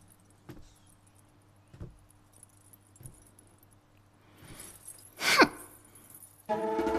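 Faint jingling and a few soft knocks, then a rising whoosh that peaks and sweeps sharply down about five seconds in. Pitched drama score music comes in near the end.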